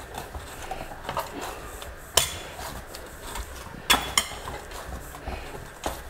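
Hands kneading soft rice-flour dough on a stainless steel plate: a low rubbing and pressing, with a few sharp metallic clinks as the plate shifts and knocks under the pressure, the loudest about two and four seconds in.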